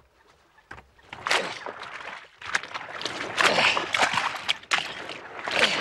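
Water splashing and sloshing as a waterlogged log is hauled out of a pond onto a muddy bank, starting about a second in and going on in irregular surges.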